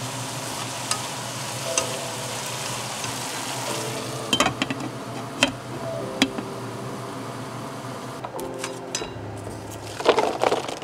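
Burdock and carrot strips sizzling steadily in a frying pan as they are stirred with chopsticks, with a few sharp clicks as chopsticks and a glass lid meet the pan around the middle. Near the end the sizzle gives way to a quick cluster of soft knocks as okra pods tumble into a silicone steamer case.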